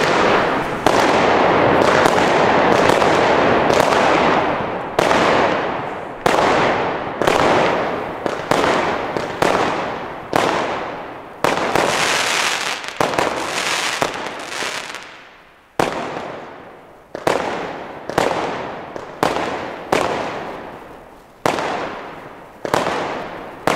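Consumer firework battery, a 30-shot 'Titania' cake, firing: about four seconds of dense continuous crackle at first, then shot after shot roughly once a second, each bang followed by a fading hiss and crackle of gold effects.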